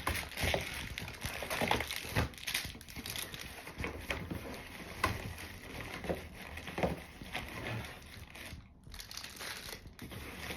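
Plastic packaging bags crinkling and rustling, with small knocks and clicks, as accessories are unpacked from a cardboard box.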